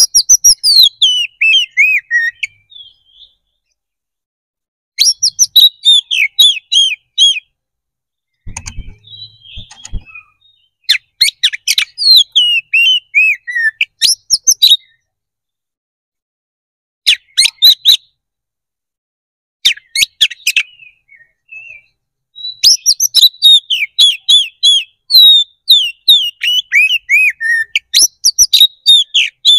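Male Oriental magpie-robin (kacer) singing loud, rapid phrases of varied whistles and chattering notes, broken by pauses of a few seconds. This is the bird in full, aggressive fighting-mode song (ngeplong tarung).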